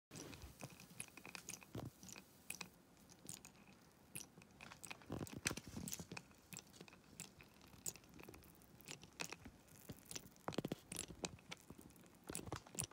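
Water in a glass beaker heated from below by a Peltier module, faintly crackling and ticking at irregular intervals as steam bubbles form and collapse at the hot bottom on the way to boiling, with a few duller pops.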